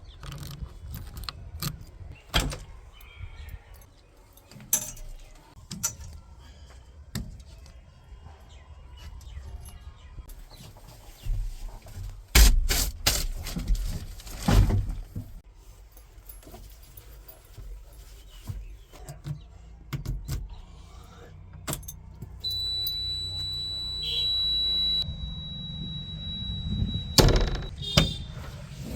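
Diesel earthmoving machinery running low and steady, with scattered knocks and clanks and two loud thuds about halfway through. A steady high-pitched whine runs for several seconds near the end.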